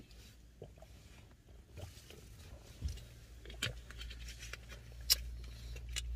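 Faint rustling and a few light clicks and taps of small handling noises inside a car cabin. A low steady hum comes in with a soft knock about three seconds in.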